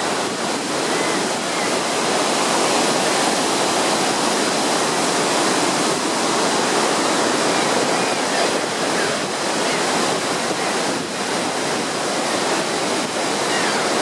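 Bridal Veil Falls at Niagara pouring down, heard up close: a loud, steady rush of falling water.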